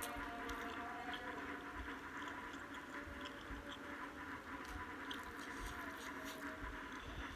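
Close-up chewing of a mouthful of spicy noodles with the mouth closed: small wet clicks and squishes, scattered and irregular, over a faint steady hum.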